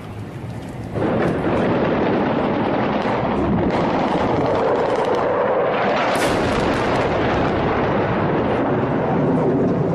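Airstrike on a city: a loud, steady roar sets in suddenly about a second in and carries on, turning harsher a little past the middle as a bomb bursts among the buildings.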